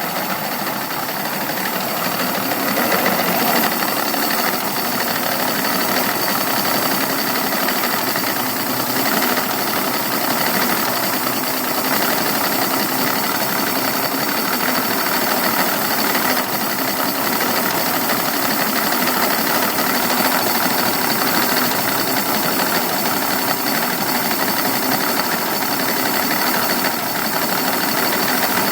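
Evinrude 200 two-stroke V6 outboard idling in neutral, running steadily but unevenly. The idle misfire shows as coughing and spitting.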